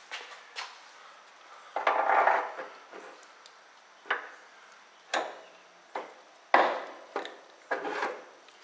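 Metal steering parts and hand tools clinking and clattering while a steering component is fitted: a rattling scrape about two seconds in, then a string of separate sharp metal knocks.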